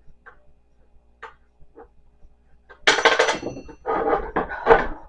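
A few light clicks and taps from furniture-assembly hardware, then about three seconds in a loud clatter of small metal parts with a brief ringing, and more clattering a second later.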